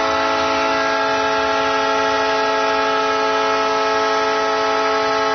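Arena goal horn sounding one long, steady blast of several held tones, signalling a home-team goal.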